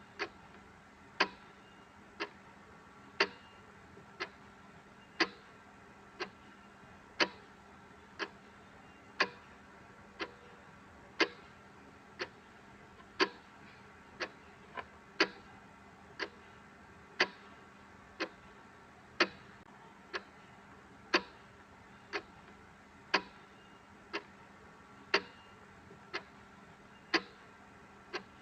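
Clock ticking steadily about once a second, the ticks alternating louder and softer in a tick-tock, over a faint steady background hum.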